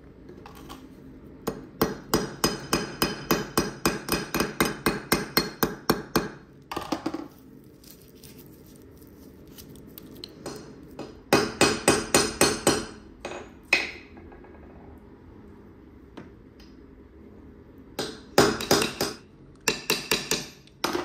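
Small hammer tapping a brass knife guard on a steel anvil, about four or five light, ringing strikes a second, in three runs with pauses between.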